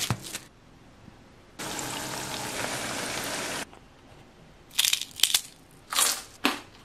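A small new potato pressed flat under plastic wrap, a brief crushing crackle; then about two seconds of steady sizzling as the potatoes fry in oil, starting and cutting off abruptly; then several sharp crunches as the crisp fried potatoes are bitten.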